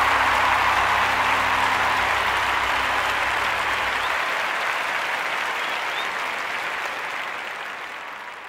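Audience applause from a live music recording, with held low notes of the music underneath that stop about halfway through. The applause then fades out slowly.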